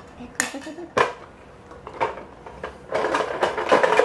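Plastic toy doctor-kit pieces knocking and clattering: a few single clicks, then a dense rattle from about three seconds in.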